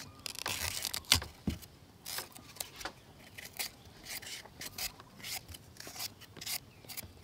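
Small knives scraping and cutting the skins off green bananas: a run of short, irregular scraping strokes.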